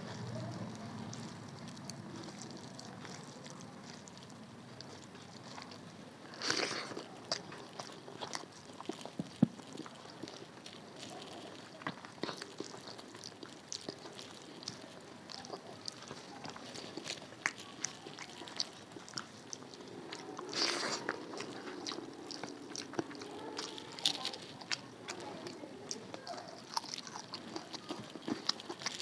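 Close-miked eating: chewing and crunching of food, with many small wet clicks and two louder crunches, about six and a half and twenty seconds in.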